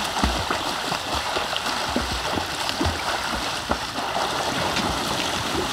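Pool water splashing and churning without a break as several swimmers stroke and kick their way across, with irregular slaps of arms hitting the surface.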